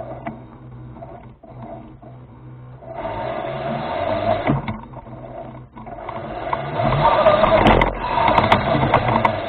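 Electric drive motor and gearbox of a remote-controlled rover whining steadily as it drives. The whine grows louder about three seconds in and again near seven seconds, with scattered clicks and knocks.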